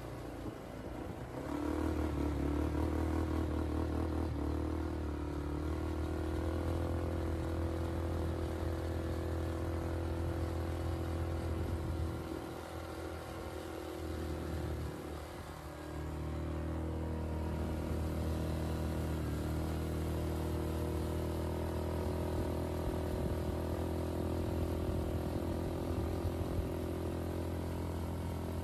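ATV engine running steadily as the quad is ridden along, easing off briefly about halfway through before picking up again.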